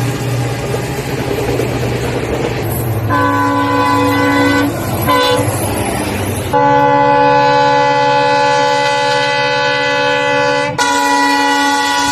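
Indian locomotive air horns blasting in turn over a low diesel engine rumble. A horn sounds about three seconds in, then a short second blast, then a long steady blast from about six and a half seconds. Near the end that blast gives way to another horn of a different pitch.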